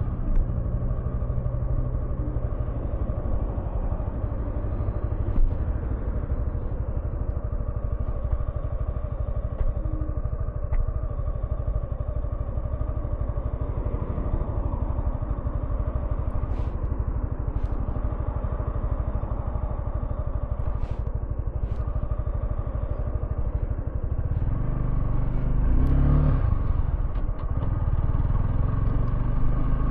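Suzuki V-Strom 250SX motorcycle's single-cylinder engine running steadily, with a few faint high ticks in the middle and a louder, deeper stretch near the end.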